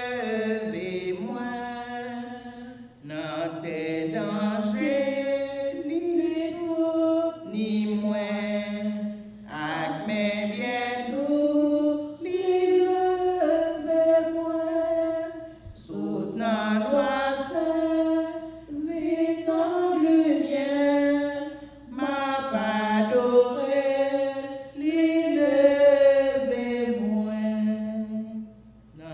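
A woman singing solo and unaccompanied, in slow phrases of long held notes with short breaks for breath between them.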